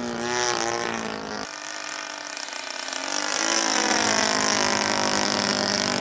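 A radio-controlled Seagull A6M Zero's 20cc two-stroke gasoline engine running in flight. It is a steady buzz whose pitch sags and then climbs, growing louder over the second half.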